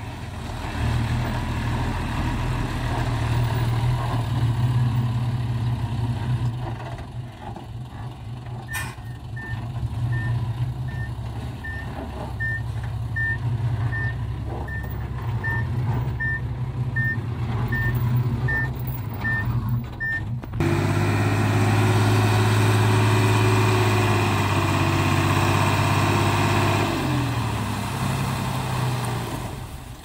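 Diesel dump truck engine running while the truck backs up, its reversing beeper sounding about one and a half times a second through the middle of the stretch. About two-thirds in, the engine suddenly holds a louder, higher steady speed as the tipper bed is raised hydraulically, then its pitch drops near the end.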